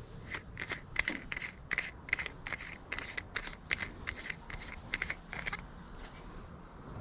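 A run of short, sharp clicks, about three a second, stopping about five and a half seconds in.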